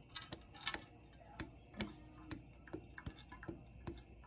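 Light, irregular clicks and taps of cookware being handled at the stove, about three or four a second.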